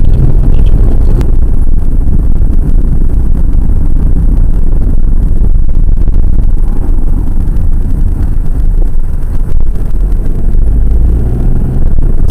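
Loud, steady low rumble of a car's engine and tyres heard from inside the cabin while driving.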